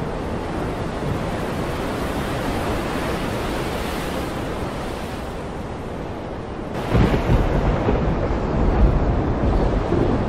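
Wind buffeting a phone's microphone over the rush of sea water churning between two ship hulls passing side by side. About seven seconds in, a sudden, louder low rumble sets in and continues.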